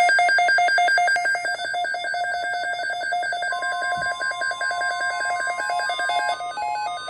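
Weather radio receiver's alert alarm for a tornado watch: a loud electronic tone warbling rapidly between two pitches. About three and a half seconds in a steady single tone joins it, and near the end the warble changes to a different pattern.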